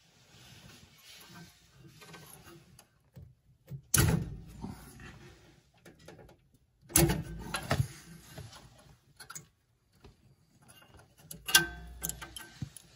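Hands disconnecting wires from a pellet stove's combustion blower motor: wires and crimp spade connectors rustling and scraping against the stove's sheet metal, with three sharp knocks, about four, seven and eleven and a half seconds in.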